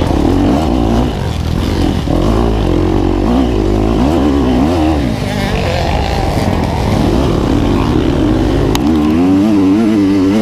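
KTM 250 XC-F single-cylinder four-stroke dirt bike engine being ridden hard, its pitch rising and falling over and over with throttle and gear changes.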